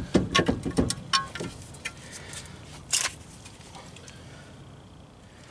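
Metal clinks and knocks from the axle shaft and wheel hub being worked by hand, as the shaft's splines are forced into the new hub: a quick run of clanks in the first second and a half and one more about three seconds in.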